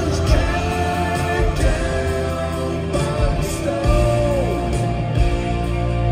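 A live rock band playing, heard from the audience in a large arena: steady bass and drums under long held notes, one of which bends down in pitch about four and a half seconds in.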